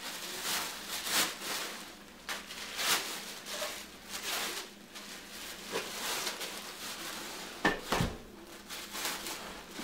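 Thin plastic trash bag rustling and crinkling as a wooden mortar is worked into it, with a dull knock near the end as the bagged mortar is set down in a suitcase.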